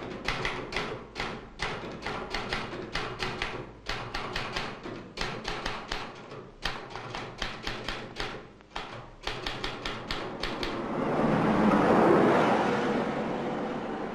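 Typewriter keys struck in quick, irregular runs with short pauses for about ten seconds. Then a rush of noise swells up, peaks about a second later as the loudest sound, and slowly eases off.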